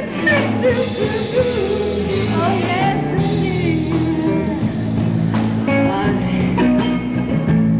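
Live rock band playing: women singing into microphones over electric guitar and a rhythm section, amplified through a PA.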